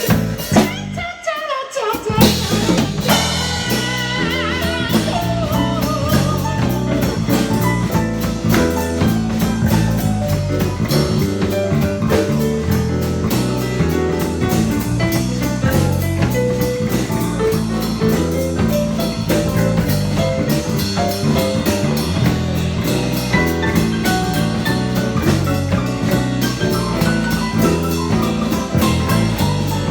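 Band music with drum kit, bass and guitar playing an instrumental passage of a Japanese pop-rock song, with a brief break in the bass and drums about a second in.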